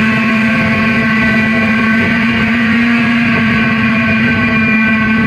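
Amplified electric guitars holding a loud, steady drone, many notes ringing on together over one strong low tone, with no drum beat.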